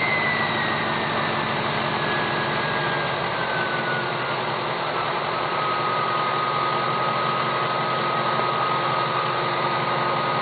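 Ford 6.0L Power Stroke V8 turbo-diesel idling with its MTW hybrid turbocharger whistling. The whistle falls in pitch over the first five seconds as the turbo spools down, then holds one steady tone over the idling engine.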